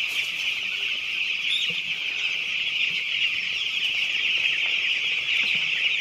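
Hundreds of six-day-old broiler chicks peeping all at once in a steady, dense, high-pitched chorus.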